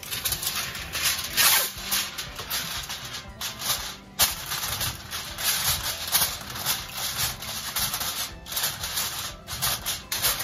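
Aluminum foil crinkling and crackling on and off as a sheet is handled and pressed over a baking tray.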